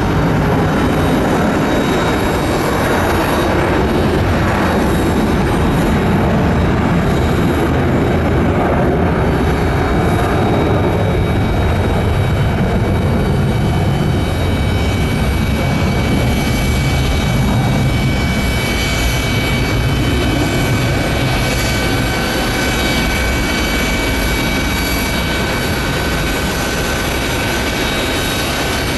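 Boeing 777-200ER's twin jet engines at take-off thrust: a loud, steady rumble, with a high engine whine coming through from about halfway in.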